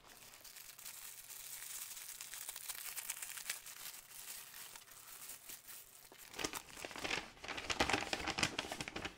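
Thin clear plastic wrap crinkling and rustling as it is pulled off a rolled canvas by hand, with louder crackling and rustling over the last three seconds.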